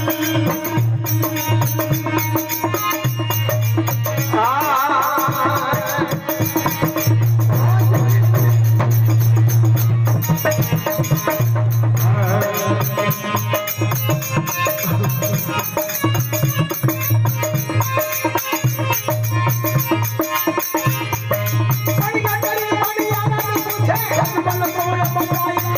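Live Rajasthani devotional folk music: a steady, strongly pulsing low accompaniment with rattling percussion. A man's singing voice with wavering, ornamented phrases comes in about four seconds in and again near the end.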